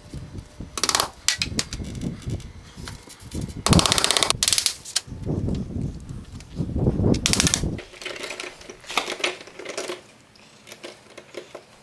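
Cordless impact driver rattling in several short bursts as screws are driven into the garage door weatherstrip and hardware. The loudest burst comes about four seconds in, with knocks and handling clatter between bursts.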